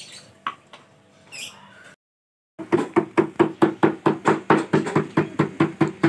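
Fast, even knocking, about six or seven knocks a second, each with a short ringing tone. It starts about two and a half seconds in, after a moment of dead silence.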